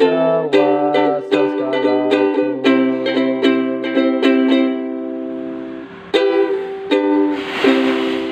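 Ukulele strumming chords about twice a second, then slowing to a couple of single strums that are left to ring. A brief rustling noise comes near the end.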